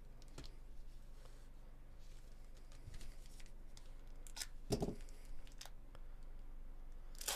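Foil trading-card pack wrapper crinkling and rustling as gloved hands handle it and begin opening it. It gives soft scattered crackles, with one louder rustle about five seconds in.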